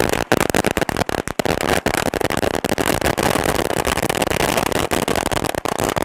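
A 1000-shot firecracker string (ladi) going off in a rapid chain of bangs. In the middle the bangs come so fast that they run together into one continuous crackle, and they thin out to separate cracks near the end.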